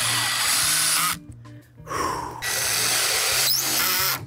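Ryobi cordless drill running into wood in two stretches of a couple of seconds each, with a short pause between them.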